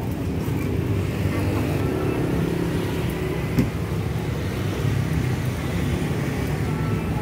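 Steady street traffic noise from passing motor scooters and cars, a continuous low rumble, with one short knock about three and a half seconds in.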